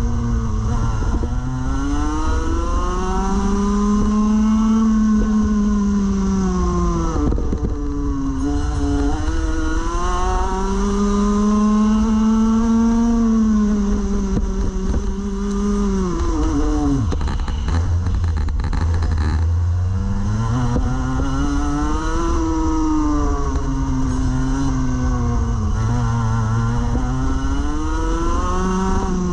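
Rotax Max Evo Senior 125cc two-stroke kart engine at race pace, heard on board: its pitch climbs hard along each straight and drops away into each corner, about three times over, with a fourth climb starting near the end.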